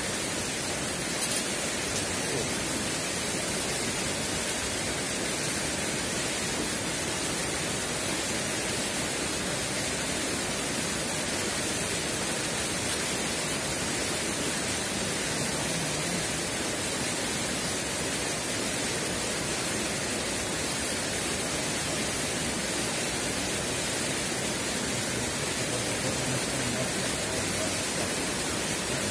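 Steady, even rush of flowing river water, with one faint click about a second in.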